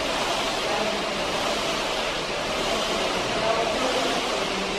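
Dragon boat paddle ergometer's flywheel whirring steadily under continuous hard paddle strokes.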